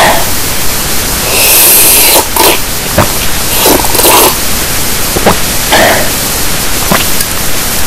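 Loud, harsh static-like noise with irregular louder bursts, and a stretch of brighter hiss about one and a half seconds in.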